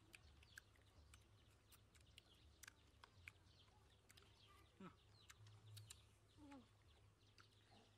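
Near silence: faint outdoor ambience with a low hum, scattered faint small clicks, and a few faint animal calls.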